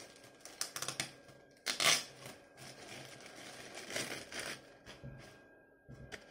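Clear plastic wrapping being torn and peeled off small cardboard toy boxes: irregular crinkling and rustling, with a louder rip of crinkling about two seconds in.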